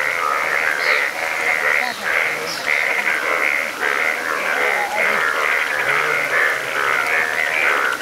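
Breeding chorus of many Indian bullfrogs, males turned bright yellow, calling in a flooded field: a dense, continuous mass of overlapping pulsing calls with no pause.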